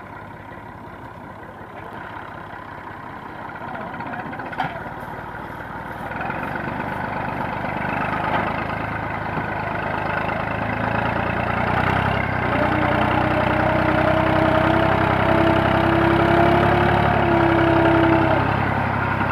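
Massey Ferguson 240 tractor's three-cylinder diesel engine running and growing steadily louder as it is revved up. In the second half a steady whine, edging slightly up in pitch, sits over the engine for several seconds.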